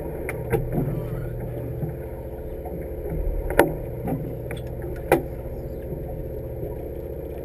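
A fishing boat's engine idling with a steady low hum, with a few sharp knocks on deck, the loudest about three and a half seconds in and another about five seconds in.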